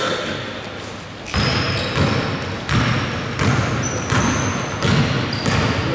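Basketball being dribbled on a wooden court floor, regular bounces about every two-thirds of a second starting about a second and a half in, with a few short high squeaks of shoes on the court.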